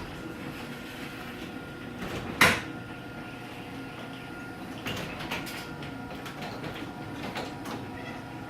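Chamberlain myQ garage door opener running, its motor humming steadily as it drives the door. There is one loud click about two and a half seconds in and a few lighter clicks later.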